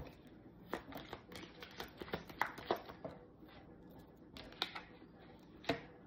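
A deck of oracle cards being shuffled by hand: a run of quick, uneven papery flicks and snaps, with a louder snap near the end as a card is set down.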